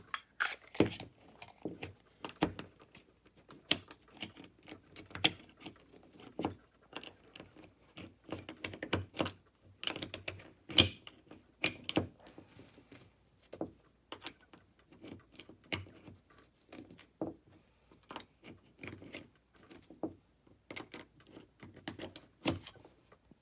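9mm cartridges being pushed one by one into a Glock 43 magazine from the top with Glock's plastic magazine loader: a long run of irregular sharp clicks and clacks of brass, plastic and the magazine, several a second.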